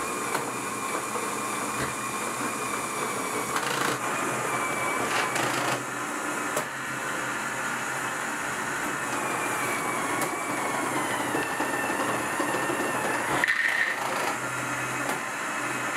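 LEGO Technic machine running: an XL motor whining as it drives plastic gears, worm gears and clutches through a mechanical gearbox, with a steady mechanical clatter and occasional clicks. The whine sinks slightly in pitch past the middle.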